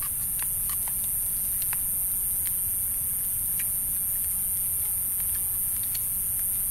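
Spoons clinking lightly against metal bowls, a few scattered clicks over a steady low rumble and a constant high hiss.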